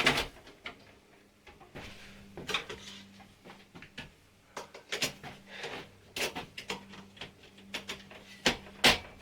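Irregular clicks and knocks of an HP Compaq Pro 6200 desktop's metal case being handled and closed up, with the sharpest knocks at the very start and near the end.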